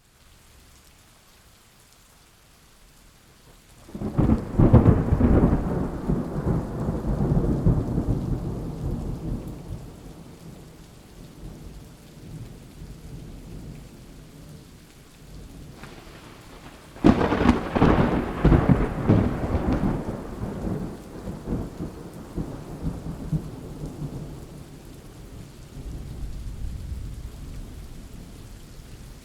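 Steady rain during a thunderstorm, with two loud thunderclaps, one about four seconds in and another about seventeen seconds in, each rolling away into a long fading rumble. A softer rumble of thunder comes near the end.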